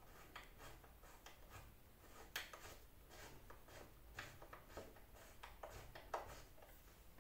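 Near silence with a handful of faint, scattered light clicks from hands working a long bolt loose at a motorcycle subframe mount.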